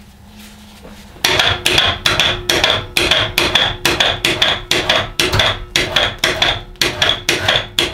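Electric winch running, hoisting the coyote carcass against the hide held in the vise grips: it starts suddenly about a second in, with a steady high whine and rapid knocking about three times a second, and stops suddenly at the end.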